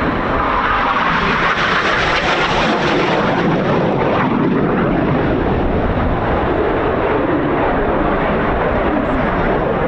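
Jet noise from the Red Arrows' BAE Hawk T1 trainers, their Rolls-Royce Adour turbofans a steady loud rush that swells slightly in the first few seconds, with wind buffeting the microphone.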